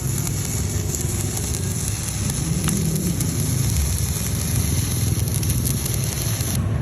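Stick (MMA) welding arc crackling and sizzling steadily as a 3.2 mm electrode burns off on an inverter welder.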